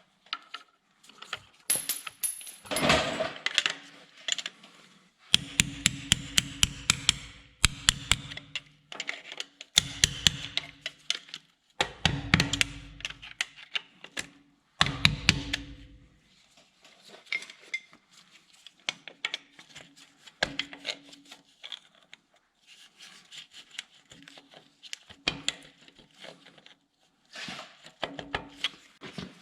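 Tools working on an engine block heater fitting: many metal clicks and knocks, with four bursts of a small motorized tool running for one to three seconds each.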